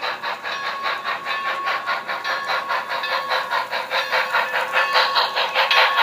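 Sound from an HO-scale model locomotive's DCC sound decoder as the train runs, played through a small speaker: fast, even beats at about six a second over a steady tone, growing a little louder near the end.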